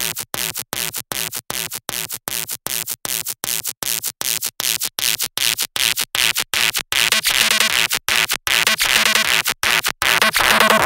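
Electronic music intro: a noisy synth sound chopped into a fast stutter of short bursts, its tone brightening as it goes, with pitched synth notes coming in about seven seconds in and the level slowly building.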